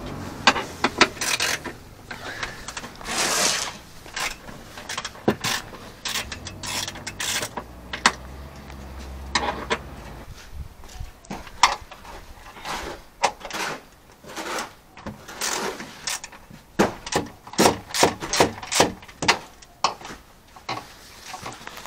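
Ratchet wrench clicking in irregular runs, with knocks and rubbing of tools on metal and plastic, as 10 mm bolts holding a car's interior trim panel are undone.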